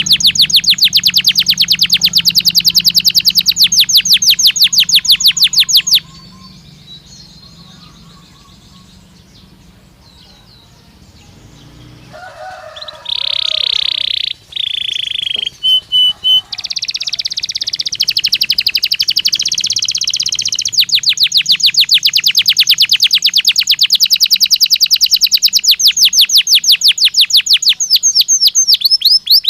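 Canary song: long, very rapid trills. These break off about six seconds in for a quieter spell, then come clear whistled notes and a few short pips, and the fast trills start again.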